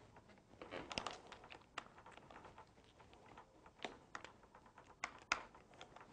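Faint rubbing and a handful of short, sharp ticks as a glued rubber handlebar grip is twisted and pushed onto the throttle side of a dirt bike's bar, up against the throttle housing.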